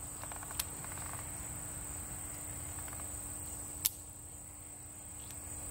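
Steady high insect chorus, with two small clicks, about half a second in and near four seconds, as cartridge shells are put back into the cylinder of a broken-open Schofield CO2 BB revolver.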